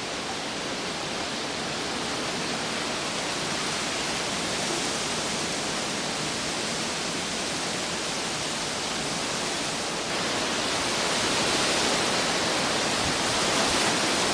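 Hurricane wind blowing as a steady rushing noise, louder from about ten seconds in.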